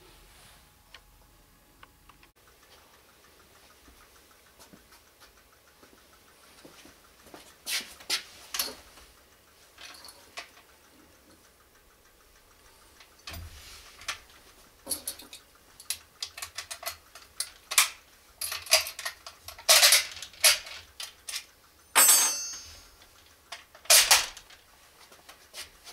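Metallic clicks and clacks of a Lee-Enfield No. 1 Mk III .303 rifle being handled and loaded, starting about seven seconds in and growing busier, with a few sharp, louder clacks of the action near the end.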